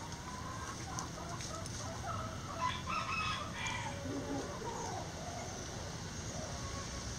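Backyard chickens clucking and calling, with a louder run of calls in several tones about two and a half to four seconds in.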